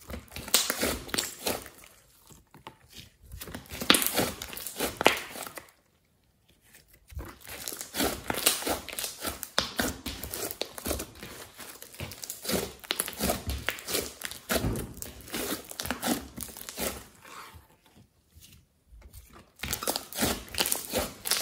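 Thick glossy slime mixed with clay being squeezed, stretched and pressed by hand, giving dense crackling and popping clicks in bursts, with three short pauses between handlings.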